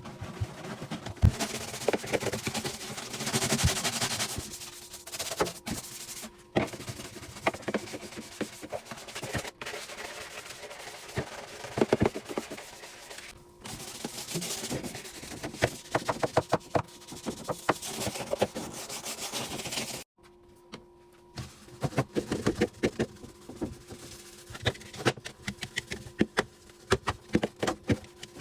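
Scrubbing and wiping on a refrigerator's surfaces, with many short knocks and clatters of parts and containers being handled. The sound breaks off abruptly several times, and a faint steady hum runs underneath.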